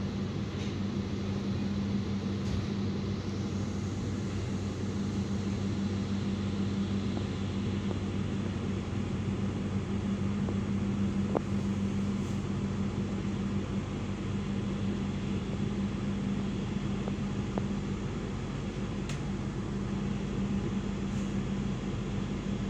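Steady rumble and hum inside a moving KA Maharani economy premium passenger coach, with a faint click about eleven seconds in.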